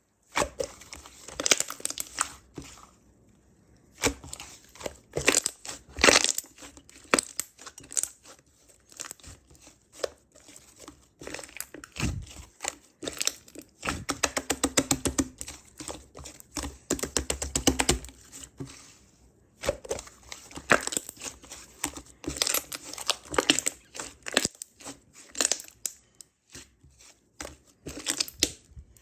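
Purple slime being squished, stretched and folded by hand, with dense clusters of sharp clicks and pops from the air bubbles trapped in it; a fast, even run of pops comes around the middle.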